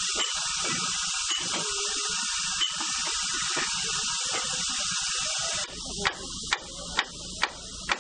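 Steam hissing steadily from a Darjeeling Himalayan Railway narrow-gauge steam locomotive standing in steam. About five and a half seconds in the hiss drops and five sharp beats follow, about two a second.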